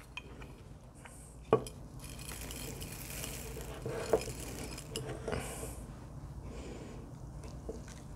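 Coarse gritty cactus mix poured from a ceramic bowl into a glazed ceramic planter, the small grains trickling and clinking against the pot. A single sharp clink about one and a half seconds in.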